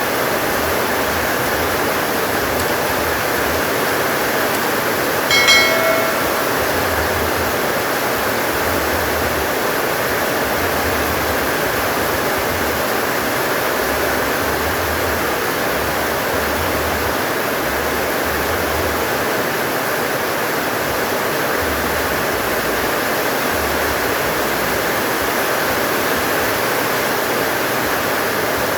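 Heavy rain pouring steadily, a dense even hiss. About five seconds in, a short pitched call briefly rises above it.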